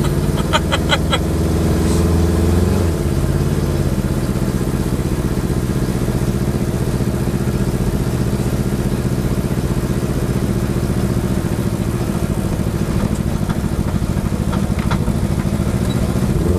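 Car engine running steadily at an even pitch, heard from inside the cabin, with a quick run of hand claps under a second in.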